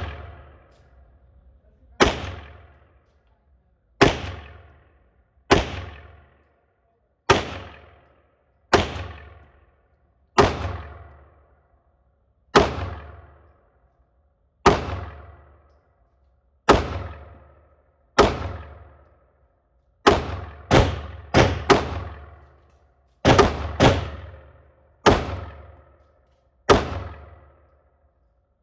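Girsan Regard MC 9mm semi-automatic pistol being fired shot by shot, about one every one and a half to two seconds, each crack followed by a short ringing tail. About two-thirds through there is a quicker string of five shots, then a few closer pairs before the slower pace resumes.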